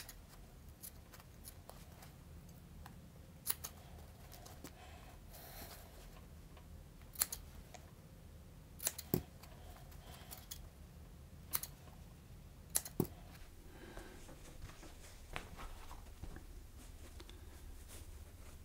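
Scissors snipping through sheet foam: a handful of sharp, short snips at irregular intervals, some in quick pairs.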